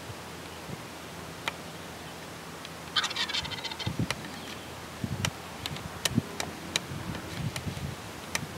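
Wild turkey tom gobbling once, a quick, rattling call about three seconds in. Scattered low thumps and sharp clicks follow.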